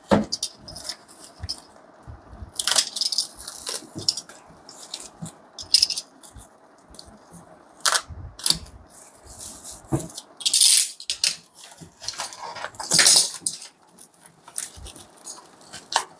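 Handling noises from unpacking equipment: scattered clicks and knocks, with several bursts of rustling packaging, the loudest about three, ten and thirteen seconds in.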